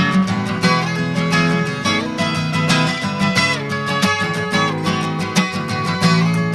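Background music: acoustic guitar, plucked and strummed with a steady pulse.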